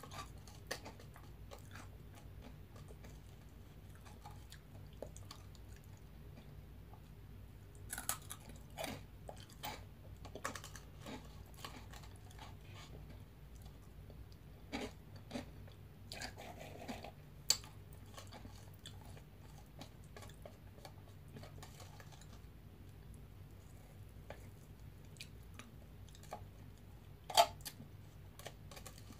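Crunchy veggie straws being bitten and chewed close to the microphone: scattered crisp crunches and mouth sounds, the two loudest about halfway through and near the end.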